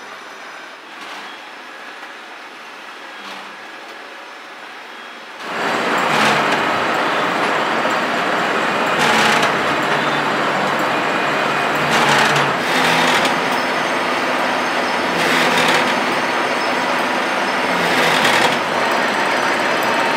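Industrial machinery running: a steady background noise, then a much louder machine noise that starts suddenly about five seconds in and swells roughly every three seconds.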